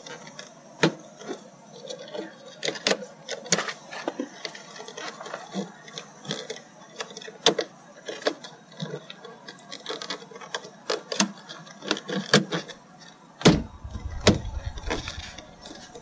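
Plastic clicks, taps and snaps from a 1999 Toyota Sienna's interior front door handle being worked and pressed into the door panel to snap it in, irregular throughout. A low rumble starts about three-quarters of the way in.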